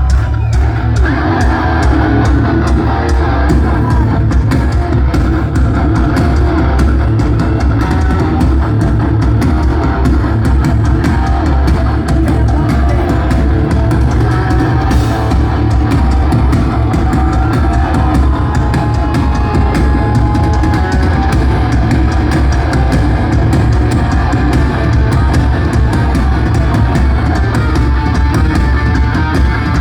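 Live heavy metal band playing loud, steady instrumental rock: electric guitars over a drum kit, with no singing.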